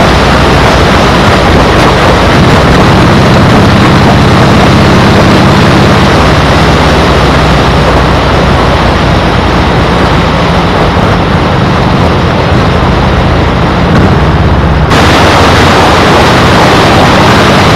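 Loud wind noise buffeting a GoPro's microphone while riding, with a low steady drone underneath. About fifteen seconds in, the hiss suddenly turns brighter.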